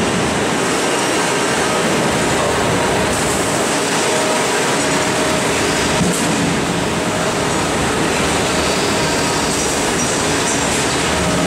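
Milking parlour machinery running in a large rotary dairy parlour: a steady, unbroken mechanical noise with a few faint steady tones.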